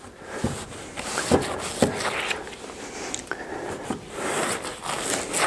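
Stone wool packing insulation being stuffed and pressed by gloved hands into the gap around a loft ladder frame: irregular rustling and crackling with a few sharp knocks.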